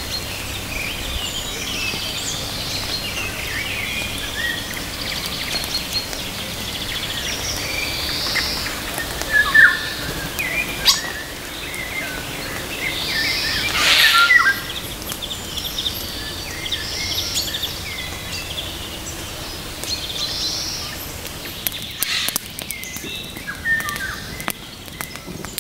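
Several birds singing and calling over a steady background hiss, with a few louder calls in the middle and some sharp clicks near the end.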